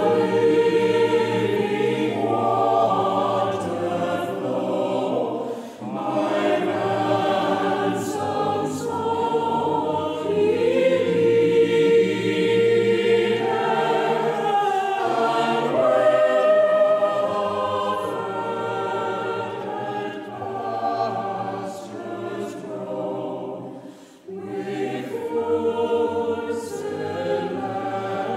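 A choir singing a slow, sustained piece, with brief breaks between phrases about 6 seconds and 24 seconds in.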